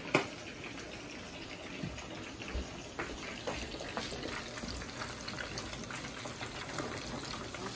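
Whole fish frying in hot oil in a pan: a steady sizzle with scattered small crackles and pops, after a sharp click at the very start.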